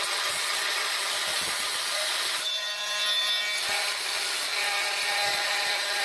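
Corded oscillating multi-tool with a diamond grout blade running steadily, held clear of the work, giving a buzzing whine; its sound changes for about a second midway.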